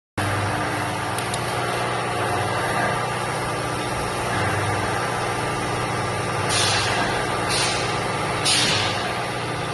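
Rebar upset-forging and threading machine running with a steady mechanical hum, with three short hisses about a second apart in the second half.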